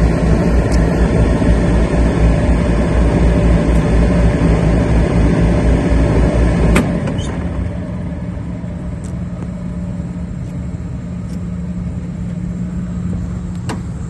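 Rooftop air-conditioning equipment running with a steady machine hum. About seven seconds in there is a sharp click and the deep rumble drops away, leaving a quieter steady hum.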